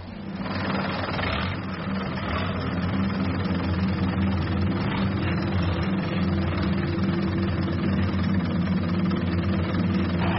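Boat engine running steadily, a low even drone that fades in over the first second or two and then holds.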